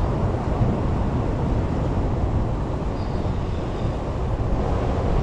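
Ocean surf washing over a rock ledge, with wind buffeting the microphone: a steady, deep rumble of rushing water.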